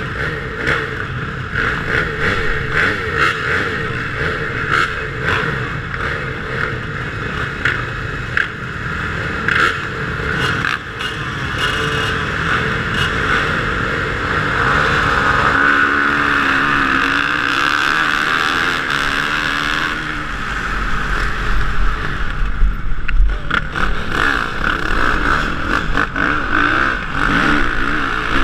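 Motocross bikes on the starting gate idling and blipping their throttles, then held at high revs for several seconds before launching at full throttle and accelerating hard, with wind rumbling on the helmet camera near the end.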